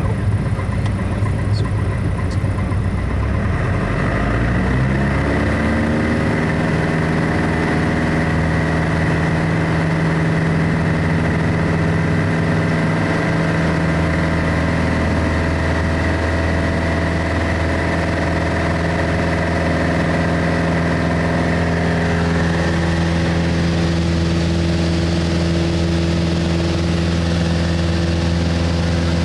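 Single-engine propeller plane's piston engine heard from inside the cockpit, coming up to takeoff power: its note climbs over a few seconds, then holds a steady drone through the takeoff roll and climb-out, changing tone slightly about 22 seconds in.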